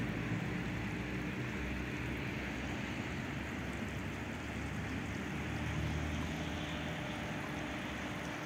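Steady low rumble of street traffic, swelling slightly about six seconds in, with a faint constant hum.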